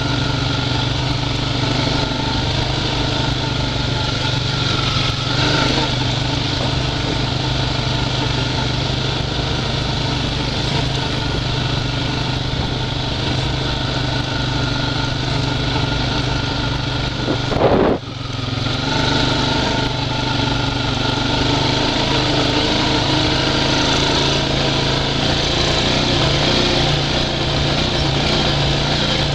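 Honda Rancher 420 ATV's single-cylinder four-stroke engine running steadily under way. About 18 seconds in, it briefly surges, drops off sharply and then picks back up.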